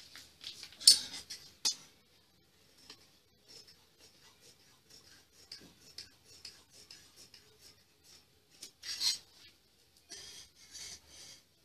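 Large tailoring scissors cutting through cloth in a run of crisp snips, with the blades rasping through the fabric. The loudest snips come about a second in and again near nine seconds, with softer cuts between them.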